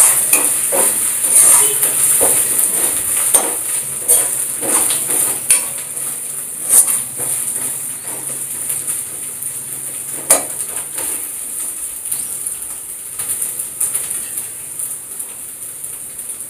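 Chopped onions and ginger-garlic paste sizzling in hot oil in a frying pan while a metal spoon stirs them, scraping and clicking against the pan now and then. The clicks come most often in the first half and thin out later.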